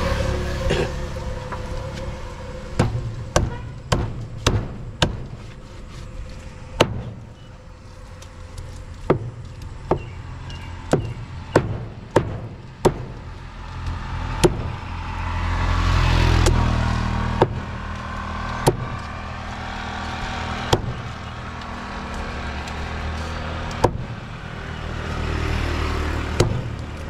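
Cleaver chopping through a large catla fish on a block: about twenty sharp, uneven strikes, coming in quick runs with pauses between. A low rumble swells and fades twice, around the middle and near the end.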